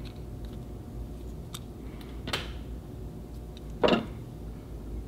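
Small parts of a vintage fountain pen being handled in the fingers: a few faint clicks and two short, louder knocks, over a steady low hum.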